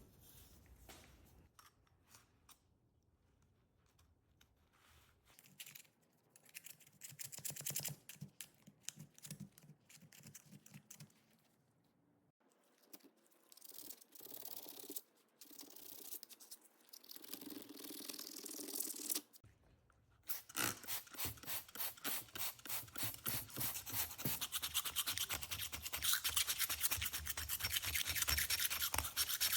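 Hand rubbing strokes on a metal part: scattered, uneven scrubbing at first, then about two-thirds of the way in a steady back-and-forth of a few quick strokes a second.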